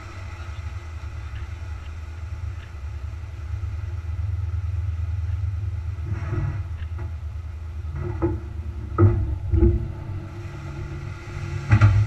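Steady low rumble of the vehicle hauling a loaded grain trailer, with a few sharp knocks and rattles about six, eight and nine seconds in and a louder knock near the end.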